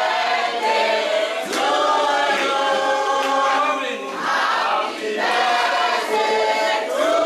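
A congregation singing together in chorus, many voices at once.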